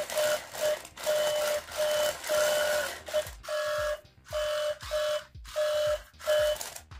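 A Sillbird WallRobot toy robot playing its electronic driving sound effect as it moves under app control: a repeating run of short mid-pitched beeps, about two or three a second. From about halfway through, a low falling thump sounds under each beep.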